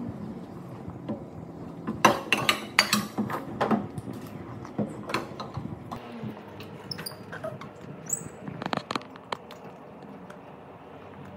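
Light clattering and tapping of dishes and objects on a stainless-steel tabletop, busiest about two to four seconds in, with a few brief high squeaks around seven to eight seconds in.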